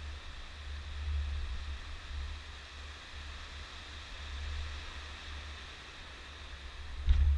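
Surf breaking on a sandy beach: a steady hiss of waves under a low rumble that rises and falls. A sudden thump near the end.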